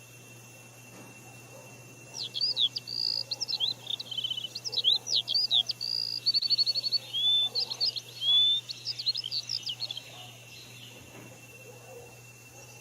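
A songbird singing a long, rapid, varied song of whistled notes, quick up-and-down sweeps and short trills, starting about two seconds in and stopping a couple of seconds before the end.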